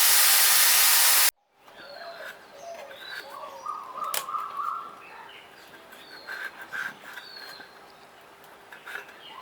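A loud, even hiss for just over a second that cuts off abruptly, then birds chirping and tweeting, with short repeated calls, over a quiet background.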